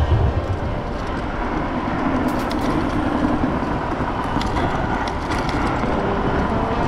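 Wind and road noise while riding a dual-motor Kaabo Wolf Warrior 11+ electric scooter, a steady rushing with a few light clicks about two and a half seconds in.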